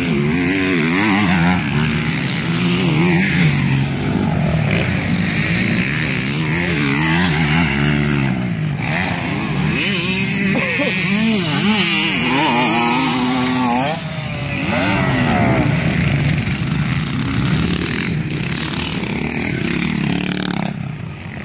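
Several motocross bikes racing on a dirt track. Their engines rev up and drop back over and over as the riders work the throttle and shift through the gears, with the sounds of several bikes overlapping.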